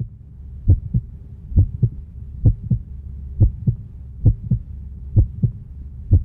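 Heartbeat sound effect: a steady double thump, lub-dub, about once a second, over a low hum.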